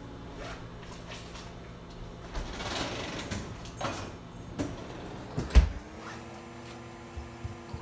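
Scattered light knocks and a short rustle, with one sharp thump a little over halfway through; just after it a steady low hum starts and holds.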